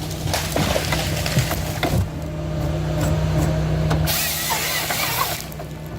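Ponsse Ergo forest harvester working: its diesel engine runs with a steady hum and knocks of the harvester head on wood. About four seconds in comes a loud hissing rush lasting over a second.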